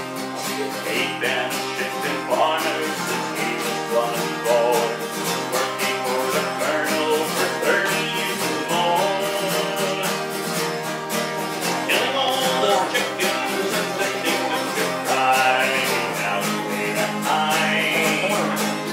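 Acoustic guitar strummed in a steady rhythm, playing a country-style tune.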